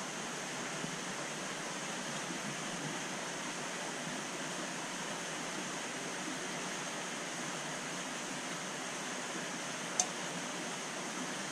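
Steady rushing noise of a large aquarium's water circulation, with return pipes and powerheads driving a strong current round the tank. A single sharp click about ten seconds in.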